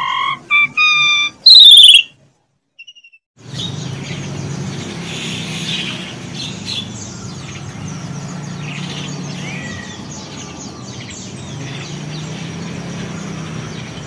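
A short synthesized logo jingle of gliding tones, then, about three seconds in, a constant din of many caged songbirds chirping and calling over a steady low hum.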